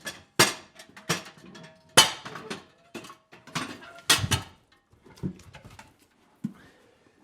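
A series of sharp knocks and clatters at irregular intervals, about a dozen, the loudest about two seconds and four seconds in.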